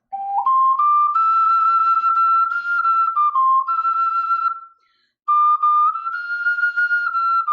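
An ocarina plays a slow melodic phrase in clear, pure tones, climbing step by step to a sustained high note. It breaks for a breath about five seconds in, then resumes and holds a long note.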